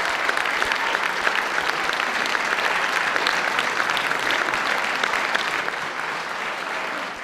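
An audience applauding, steady clapping from many hands that cuts off abruptly at the end.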